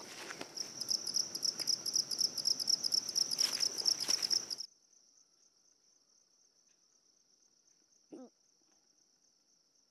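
Insects trilling in a loud, pulsing, high-pitched chorus over footsteps on a grassy path. About four and a half seconds in, the sound drops suddenly to a faint steady insect buzz, with one brief low call near the end.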